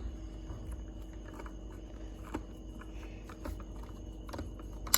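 Small scattered clicks and ticks of screws being worked out of a plastic Nerf blaster with a Phillips screwdriver, with one sharp, louder click near the end.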